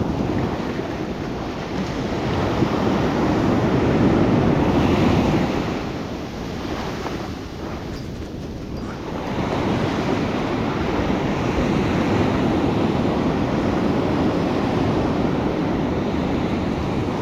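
Surf breaking on a sandy beach, swelling and easing twice, with wind on the microphone.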